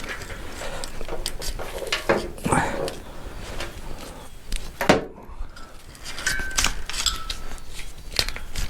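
Hand tools and small metal engine parts clinking and knocking as an engine is stripped down: a string of separate clicks and clanks at irregular intervals.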